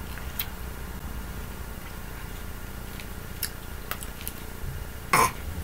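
Quiet room with a steady low hum and a few faint clicks, then a short vocal noise from a person about five seconds in.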